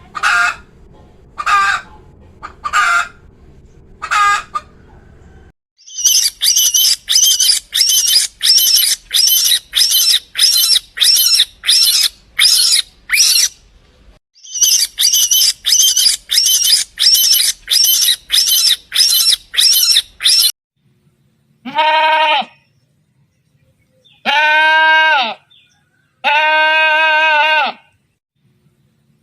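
Farm animal calls in sequence: a few short bird calls, then a long fast run of high-pitched chirps, about two a second. Near the end come three long, wavering bleats.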